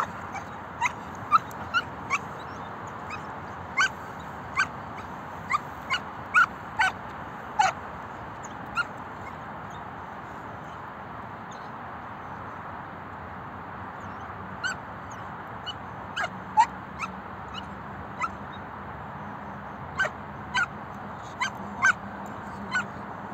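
Belgian Malinois puppy barking in short, high-pitched barks at irregular intervals, with a lull of a few seconds in the middle, over a steady hiss.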